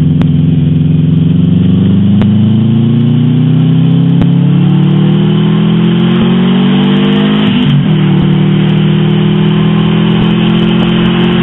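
Turbo-swapped Subaru WRX's flat-four engine pulling hard under acceleration, heard from inside the cabin. Its note climbs steadily for about seven seconds, drops sharply with an upshift, then holds nearly steady.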